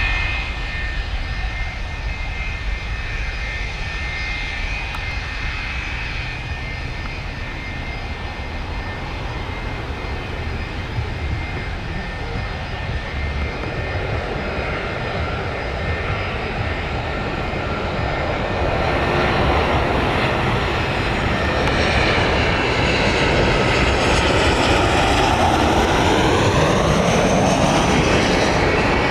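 Boeing 737's CFM56 turbofan engines on final approach to land: a steady jet whine over a rumble, growing louder over the last ten seconds as the airliner comes close, with the whine sliding down in pitch as it passes.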